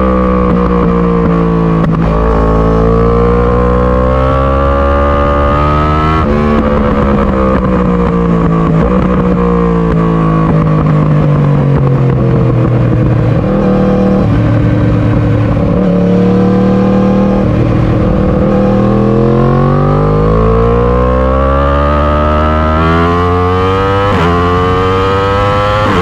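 2018 Yamaha R1's crossplane inline-four engine breathing through an Akrapovic Evolution exhaust while riding. The revs fall and climb, run through a long slowdown in the middle, then climb steeply near the end, with sudden pitch jumps at gear changes.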